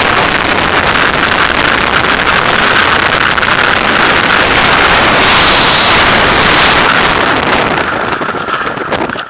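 Freefall wind rushing hard across the camera's microphone during a skydive, a loud steady roar of air. Near the end it thins out and drops away as the parachute opens and the fall slows.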